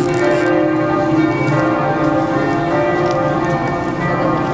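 Church bells pealing, several large bells ringing together in a steady, overlapping peal.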